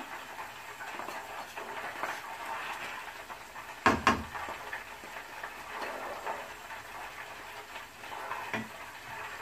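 Wooden spatula scraping chopped coriander leaves off a small plate into a pan of prawn curry, with light clinks and scrapes and one sharp knock about four seconds in.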